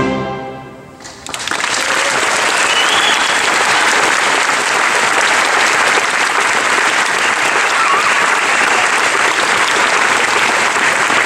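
A concert band's final held chord dies away, and about a second in the audience breaks into applause that carries on steadily.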